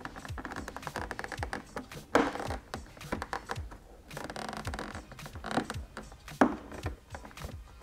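A Honda CBR600RR's plastic fairing panel being pushed into place by hand: plastic scraping and rubbing against the bodywork, with a few sharper clicks as its clips seat. The loudest click comes about six and a half seconds in.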